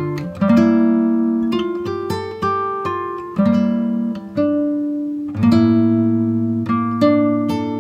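Background music on a plucked acoustic guitar. Single notes and chords are struck about once or twice a second, and each one rings out and fades before the next.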